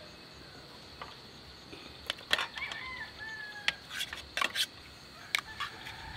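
Knife clicking and scraping against a plate as raw meat is cut into small pieces, several sharp separate clicks. A faint bird call sounds twice, once in the middle and once near the end, over a steady high insect chirring.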